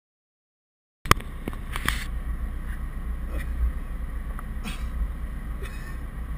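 Car running, heard from inside the cabin as a steady low rumble that cuts in about a second in, with a few clicks and knocks from the occupants moving about.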